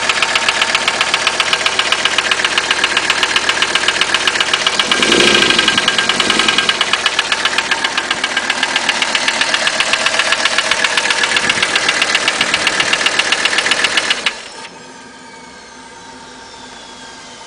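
1985 Mercedes-Benz 300TD's five-cylinder diesel engine running with a rapid, regular knock, which the owner says sounds like piston slap but doubts is the real cause. The engine is shut off about fourteen seconds in, and the knocking stops.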